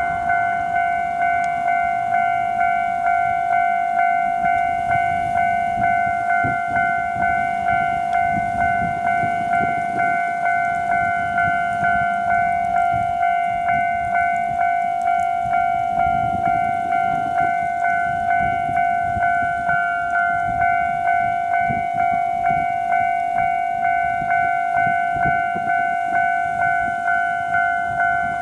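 Japanese railway level-crossing alarm ringing, a steady repeated ding at about two strokes a second.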